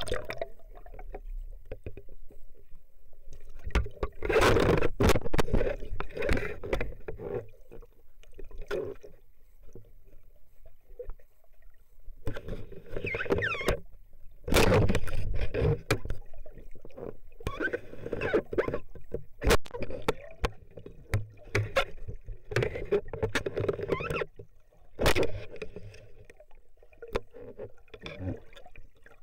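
Water sloshing and gurgling against a partly submerged camera as a spearfisher moves through the water. It comes in irregular surges, loudest about four to six seconds in and again around fourteen to sixteen seconds.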